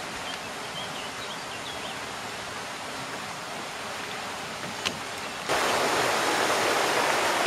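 River water rushing through a weir and its white-water pool, a steady rush. About five and a half seconds in it becomes much louder and closer.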